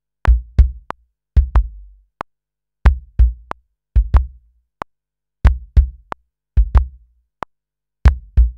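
Software kick drum sample in Logic Pro X playing back a MIDI kick pattern converted from hand claps, heard as repeating pairs of quick deep kicks. Short metronome clicks tick along at 92 bpm, and the kicks are unquantized, so their timing is loose.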